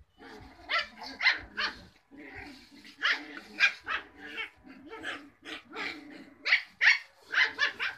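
Cocker Spaniel puppies yapping in a quick, irregular string of short high-pitched barks as they play-fight, busiest near the end.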